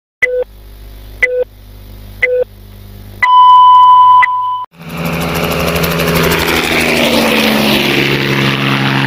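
Film-leader countdown sound effect: three short beeps about a second apart over a low hum, then one longer, louder beep. About five seconds in, a loud, steady whooshing drone with a low tone sliding slightly down takes over for the logo intro.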